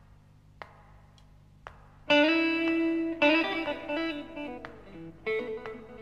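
Opening of a 1966 blues recording: a few sharp, quiet taps about a second apart, then a guitar comes in loudly about two seconds in, picking ringing notes and chords of the intro riff.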